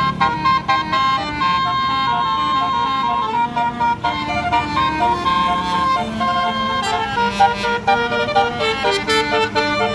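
A bus's musical 'telolet' air horn playing a melody: several horn tones sounding together and stepping quickly from note to note, with a few short clicks.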